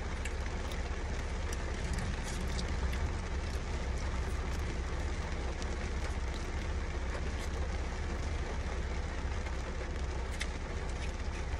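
Steady low rumble and hiss of a car cabin, the sound of the car running while parked, with a few faint clicks of fries being handled and eaten.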